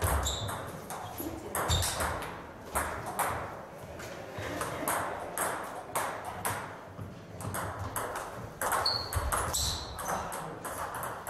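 Table tennis rallies: balls clicking off bats and tables in quick, irregular clicks, from more than one table at once. A few short high squeaks come near the start and again about nine seconds in.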